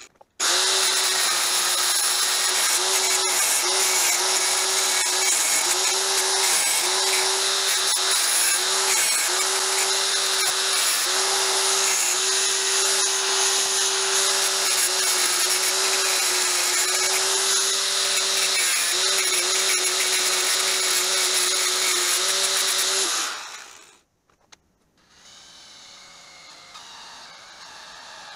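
Angle grinder with a cutoff wheel cutting steel angle iron: a loud, dense grinding with the motor's steady whine dipping briefly over and over as the wheel bites under load, stopping abruptly. Near the end a cordless drill runs more quietly, drilling the steel piece held in the vise.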